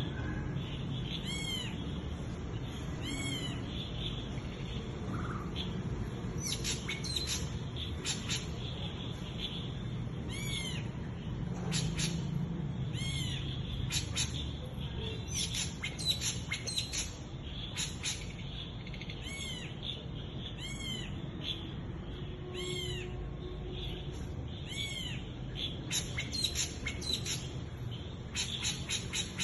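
A night bird calling over and over, each call a short arched note repeated every second or two, with many sharp clicks in between and a steady low rumble underneath.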